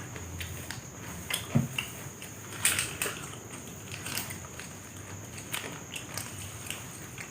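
Irregular crinkling and clicking of plastic instant-noodle seasoning sachets being torn open and squeezed out.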